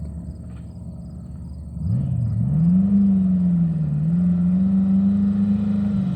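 Lamborghini Aventador's V12 engine running low, then rising in pitch about two seconds in as the car accelerates. It holds a steady high note, with one brief dip and recovery near the middle.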